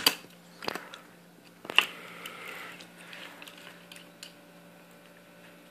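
Handling clicks and knocks as parts are fitted onto a Tippmann A5 paintball marker: a few sharp clicks in the first two seconds, the loudest just under two seconds in, then fainter ticks.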